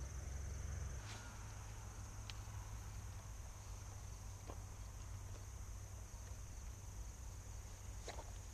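Steady, high-pitched chirring of an evening insect chorus, with a low rumble underneath and a few faint clicks scattered through.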